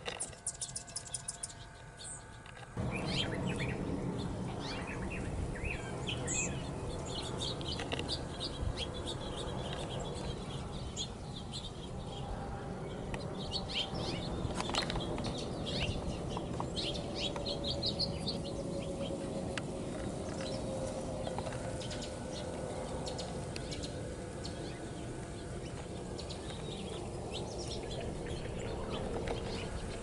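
Small wild birds chirping and singing, with many short high calls throughout. From about three seconds in they sound over a steady low rumble.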